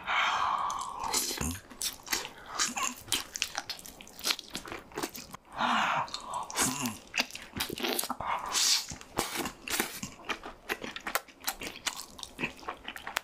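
Close-miked eating sounds: biting and chewing fried chicken covered in melted cheese, with crunches and many quick, irregular wet mouth clicks.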